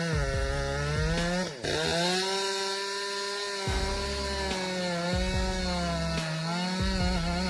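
Chainsaw running and cutting wood, its engine pitch repeatedly dipping under load and picking back up, with a brief break about one and a half seconds in.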